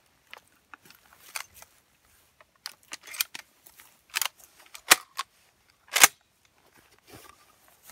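Hatsan shotgun being handled: a run of sharp mechanical clicks and clacks, the two loudest about five and six seconds in.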